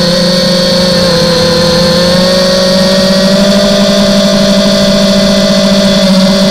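Brushless motors and propellers of a 250-size quadcopter whining steadily, picked up close by the onboard camera. The pitch rises slightly about two to three seconds in.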